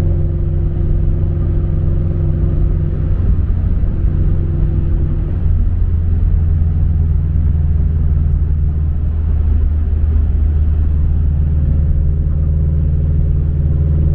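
Subaru BRZ flat-four boxer engine and MAperformance 3-inch catback exhaust heard from inside the cabin while cruising: a steady low rumble with a light hum above it. The higher tones fade about four seconds in and return near the end.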